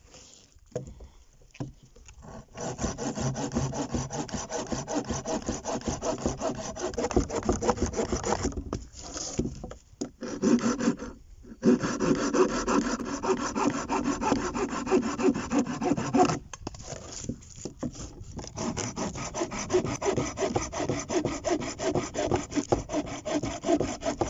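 Hand pruning saw cutting through a bark-covered branch on a wooden table: quick back-and-forth strokes of the blade through the wood, starting about two and a half seconds in and stopping briefly a few times along the way.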